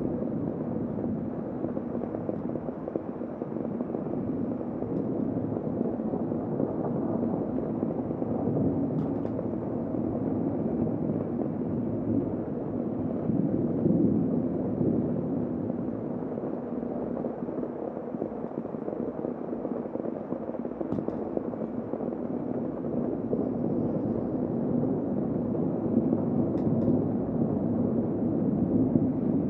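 Heavy rain heard from inside a room through a window: a steady, muffled rush with little hiss, with a few faint ticks scattered through it.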